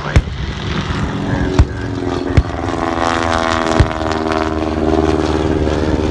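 Vintage propeller aircraft flying low over the airfield, their piston engines' drone building up and loudest in the second half, punctuated by four sharp, loud pyrotechnic bangs simulating anti-aircraft fire.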